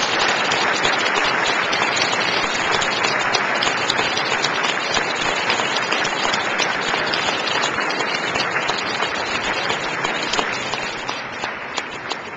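Assembly of delegates applauding in a large hall, a dense steady clapping that dies away over the last couple of seconds.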